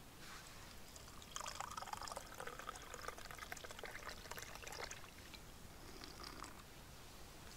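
Drink poured from a stainless steel Esbit vacuum flask into a small cup: a faint, trickling pour that starts just over a second in and stops after about three and a half seconds.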